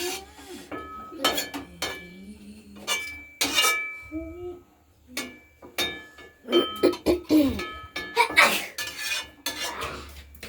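Metal utensils clinking and knocking against a metal cooking pot, a dozen or so separate strikes, several ringing on briefly with a clear metallic tone.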